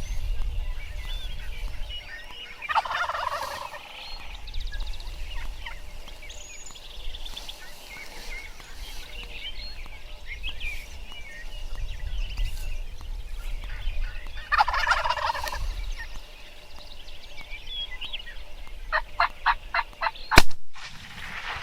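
Wild turkey gobbling twice, with wind rumbling on the microphone. Near the end comes a quick run of about seven evenly spaced yelping notes, then one loud sharp crack, the loudest sound of all.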